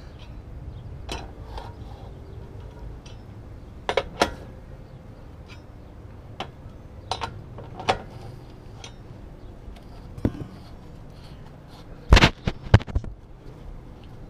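Scattered metallic clinks and knocks of a four-way lug wrench working the lug nuts off a car's front wheel, with a louder cluster of clanks about twelve seconds in.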